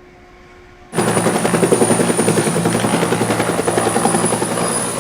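Helicopter rotor and turbine running, cutting in suddenly about a second in: a fast, even chopping with a steady high whine over it.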